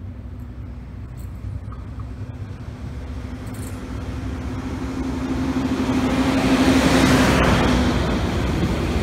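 Siemens Desiro Classic (DB class 642) diesel multiple unit approaching and passing close by. Its diesel engine hum grows steadily louder, with a rush of wheels on the rails at the loudest point about seven seconds in, and the engine tone drops slightly in pitch as it goes past.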